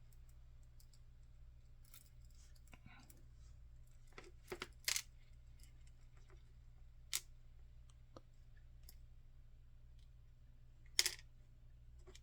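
Small metal clicks and taps from an EVVA ICS lock cylinder being taken apart, its sidebars being removed. A few scattered sharp clicks, a cluster about four to five seconds in and the loudest about eleven seconds in, over a faint steady hum.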